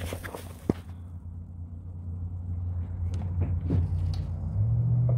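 A machine's steady low hum with a few light knocks; the hum grows louder and steps up a little in pitch about four and a half seconds in.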